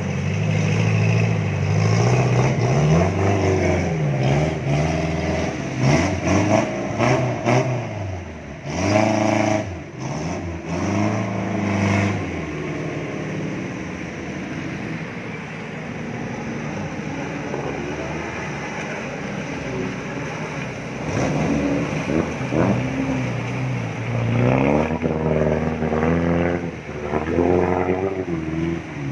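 Off-road 4x4 engines revving up and dropping back again and again as the vehicles push through a flowing, muddy river crossing. The revving eases to a steadier, quieter run through the middle stretch and picks up again near the end.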